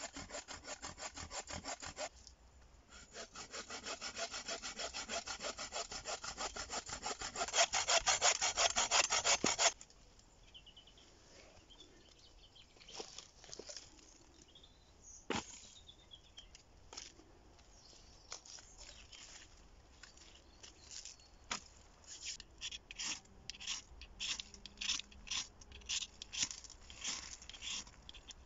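Folding hand saw cutting through a thin branch on a wooden stump, in fast, even push-pull strokes. There is a short break about two seconds in, then the strokes run louder until the cut ends about ten seconds in. After that come scattered light clicks and snaps of sticks being handled, growing more frequent near the end.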